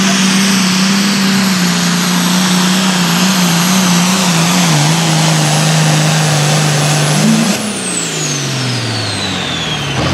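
International 1066 pulling tractor's turbocharged diesel engine running flat out under load while dragging the sled, with a steady high turbo whine above it. About seven and a half seconds in, the engine blips and then winds down as the throttle comes off, and the turbo whine falls away.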